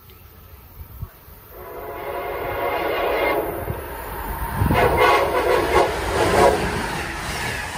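Train horn sounding: one long blast starting about a second and a half in, then a louder run of shorter blasts, over the low running noise of the approaching train.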